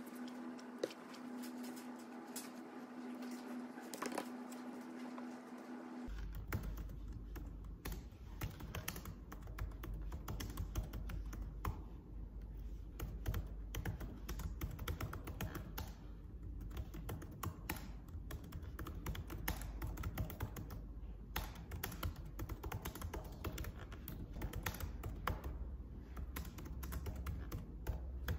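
Fingers typing on a laptop keyboard: quick, irregular key clicks over a low steady hum. For the first six seconds a steady humming tone is heard instead, and it cuts off abruptly.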